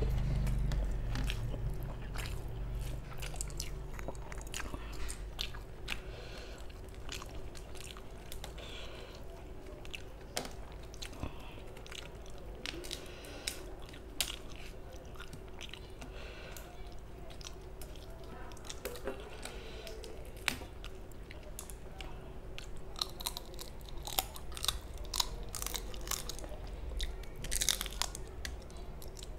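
Close-miked chewing of a mouthful of rice and curry eaten by hand, with wet mouth clicks and smacks. Near the end come a run of sharper, crunchier bites as a large prawn is bitten into.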